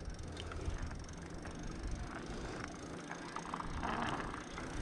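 Bicycle rolling over pavement: a steady low rumble of tyres and wind on the microphone, with a few light clicks and rattles from the bike.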